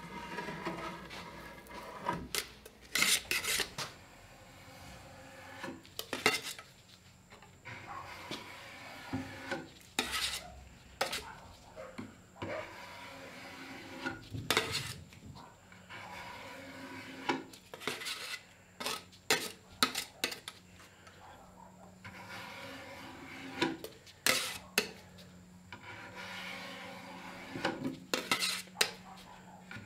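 Metal putty knife scraping softened stripper and old finish off a wooden chest top in short, irregular strokes, with the blade scraped clean against the rim of a metal can.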